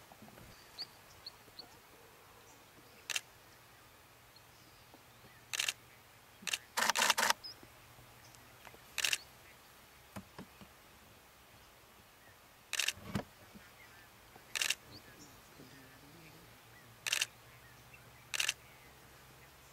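Camera shutters clicking in single shots every couple of seconds, with a quick burst of several shots about seven seconds in, over a quiet background with a faint low hum.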